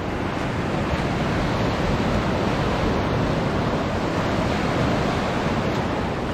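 Sea surf washing against the shore: a steady rushing noise that swells a little in the middle.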